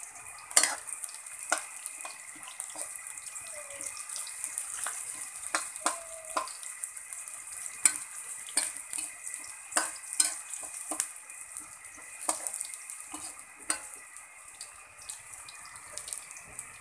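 Chopped onion and garlic sizzling in hot oil in a wok, with a metal spatula scraping and clinking against the pan as they are stirred.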